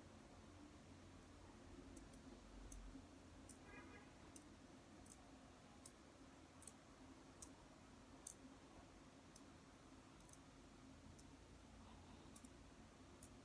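Faint, sharp little clicks at irregular intervals, roughly one a second, over a low steady hum, with a brief buzzy rattle about four seconds in.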